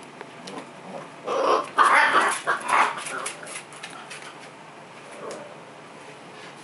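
A young puppy giving a few short, rough barks between about one and three seconds in, with faint light clicks from its claws on the tile floor.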